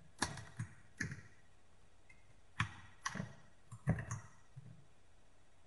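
Computer keyboard keys and mouse clicks, about nine separate light clicks at uneven intervals, then quiet for the last second.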